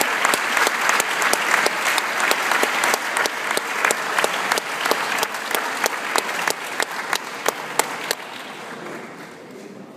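An audience applauding, with loud claps from one pair of hands close by. The close claps stop about eight seconds in and the applause dies away.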